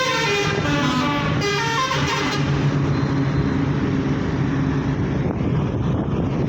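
A vehicle horn sounding for about two seconds, its pitch wavering near the end, over steady road traffic noise.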